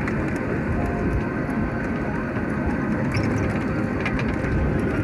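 Steady rumble of a moving monorail ride with wind buffeting the phone's microphone, the phone held out of the car into the airstream.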